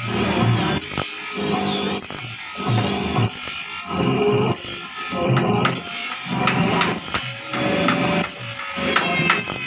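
Electric motor driving a small grinding disc that grinds the teeth of a band saw blade one after another, about one stroke a second over the motor's steady hum. The blade is being resharpened after hitting nails in reclaimed wood.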